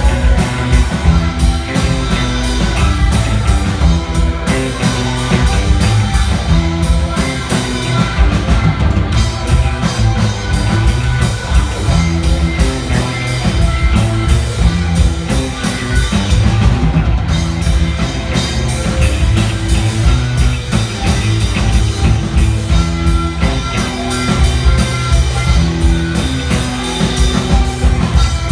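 Rock band playing live: drum kit and guitars in a steady, loud passage without singing.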